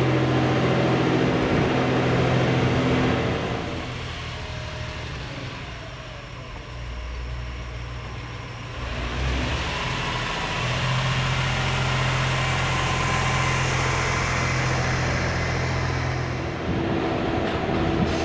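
JR East GV-E400 electric-drive diesel railcar running during shunting moves: a steady diesel engine hum. It drops away about four seconds in and comes back strongly around ten seconds in.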